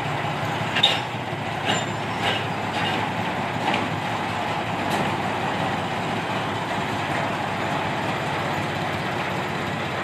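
Kyosan Kogyo diesel sugar-cane locomotive engine running steadily as it passes at low speed hauling loaded cane wagons. Several sharp metallic clanks come in the first five seconds.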